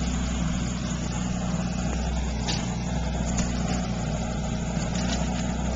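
An engine running steadily: a low, even hum with no change in speed.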